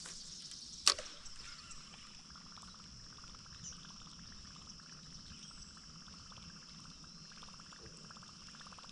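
Steady high-pitched chirring of crickets, with one sharp click about a second in.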